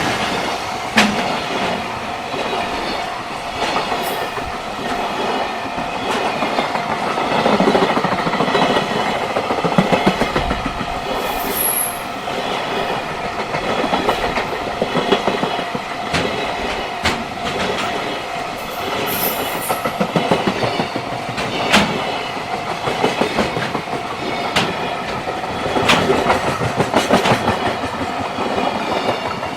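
Long freight train rolling past, its wagon wheels clacking over rail joints in a steady stream of knocks, with a continuous high ringing tone.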